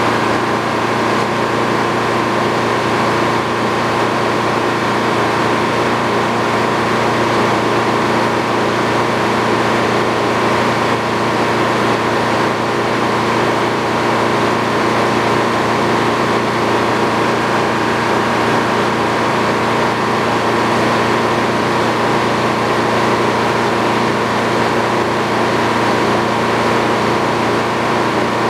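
Sawmill running steadily, its engine holding one constant pitch throughout.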